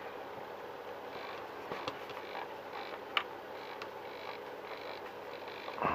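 Faint handling sounds of small RC model parts: a few light clicks, the sharpest about three seconds in, with soft scraping between.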